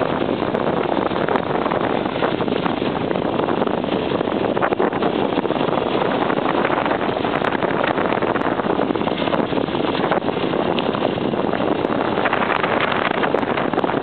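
Off-road motorcycle riding fast along a gravel road: steady engine and road noise mixed with wind buffeting the microphone.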